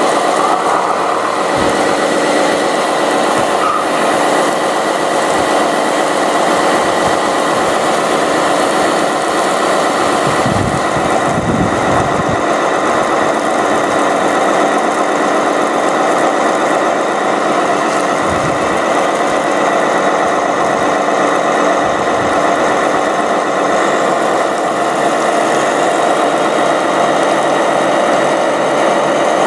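Radio-controlled fire trucks running steadily: a continuous engine-like hum with a constant high whine, and a few brief low rumbles about ten seconds in and again near eighteen seconds.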